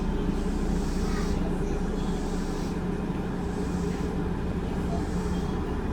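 Interior sound of a Kintetsu 7020 series train running on the Osaka Metro Chuo Line: a steady low rumble of wheels and motors, with no clear change in pace.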